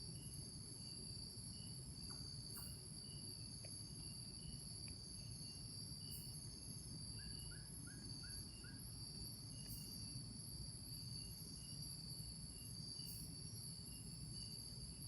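Rainforest insects making a steady high-pitched drone, with a faint chirp repeating about three times a second. Partway through, a quick run of five short falling notes sounds once, over a low rumble.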